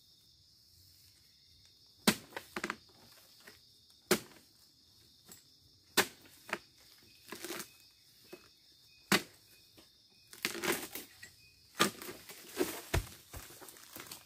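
Oil palm harvesting pole chopping at the base of a fruit bunch in the crown: sharp single strikes about every two seconds, then a quicker run of blows with rustling fronds, and a low thud near the end as the cut bunch drops.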